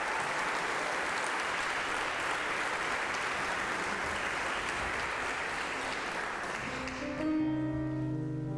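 Congregation applauding, the clapping dying away about seven seconds in as the band starts playing sustained instrumental chords.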